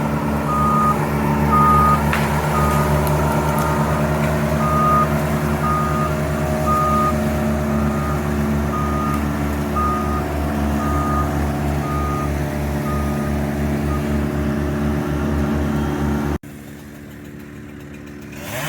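Diesel work vehicle running steadily with its reversing alarm beeping, about one beep every 0.7 s, until the beeps stop about 14 seconds in. The sound cuts off suddenly near the end, leaving a much quieter background.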